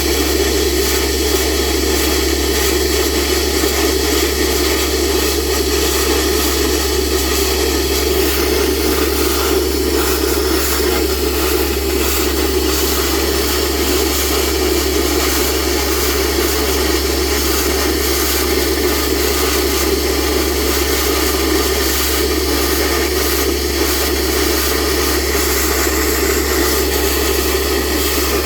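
Compressor machine running steadily and loudly while flushing a borewell, a constant mechanical noise with a low hum underneath.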